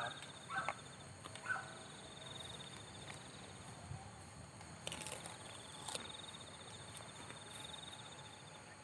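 Insects trilling: a fast, pulsing high buzz that runs in long stretches with short breaks. A few faint clicks come about five and six seconds in.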